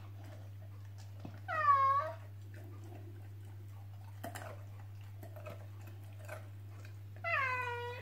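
A dog whining twice, each call about half a second long and falling in pitch, the first about a second and a half in and the second near the end, over a low steady hum.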